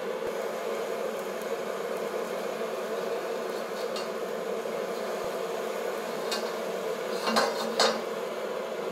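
High-pressure jet wok burner running with a steady flame noise. Near the end, the carbon steel wok clinks and scrapes against the burner's metal ring a few times as it is tilted to heat its sides.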